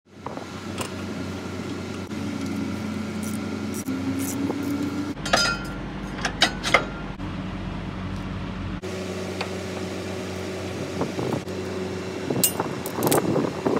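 Metal hand tools clinking against the bolts and mount of a truck's front shock absorber as it is being fitted, over a steady low engine hum. The sharp clinks come in a cluster about five to seven seconds in and again near the end.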